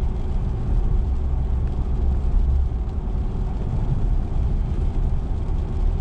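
Steady low rumble of a car driving on a wet road, heard inside the cabin: tyre and road noise with the engine underneath.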